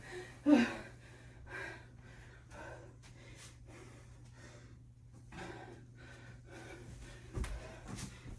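A woman panting from burpee exercise: quick, noisy breaths about twice a second. A couple of dull thuds come near the end.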